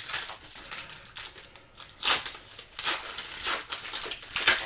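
Trading cards and their packaging being handled: a run of short crinkling, rustling sounds, loudest about two seconds in and again near the end.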